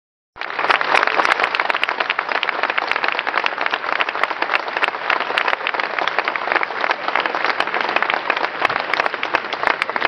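Castanets played in a fast, continuous roll of dense, rapid clicks, starting about half a second in.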